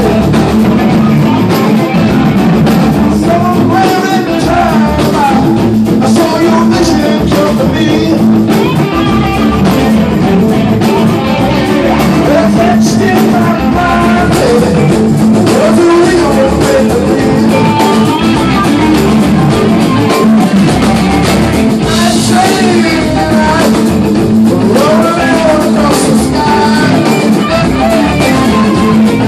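Live rock band playing loudly: electric guitars and drums, with a singer's voice over them.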